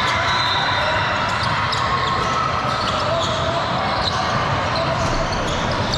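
A basketball bouncing on a gym court over steady crowd chatter, with short high squeaks scattered through.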